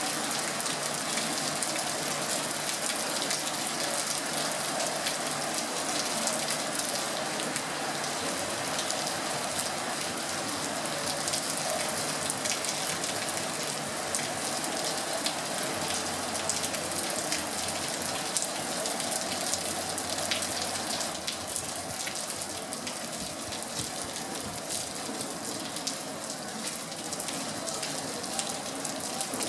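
Heavy rain mixed with small hailstones falling steadily, a dense hiss peppered with fine ticks of pellets striking surfaces; it eases slightly about two-thirds of the way in.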